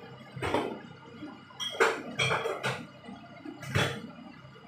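Oyster sauce poured from a bottle into a hot wok of noodles in about five short spurts.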